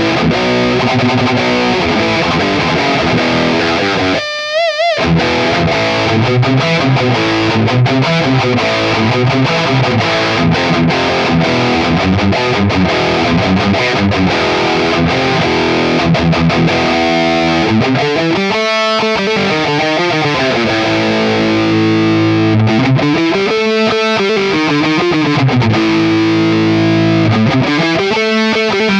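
Cort CR 250 single-cut electric guitar played with distortion, picking notes and riffs. About four seconds in a note wavers briefly, and in the second half a slow sweeping effect rises and falls over the playing about every five seconds.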